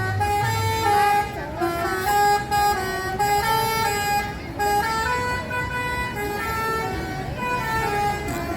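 Bus 'telolet' multi-tone horn playing a tune of short stepped notes that changes pitch every fraction of a second, without a break, over a low engine rumble.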